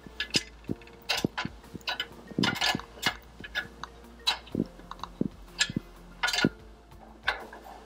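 Metal spanner clicking against a nut and the steel frame as the nut is turned on the tension weight's threaded rod, in short irregular clicks about three a second.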